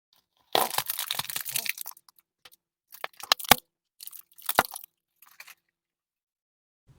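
A crunchy object being crushed under a car tyre: a dense crunching about half a second in, then a few separate sharp cracks and snaps as pieces break.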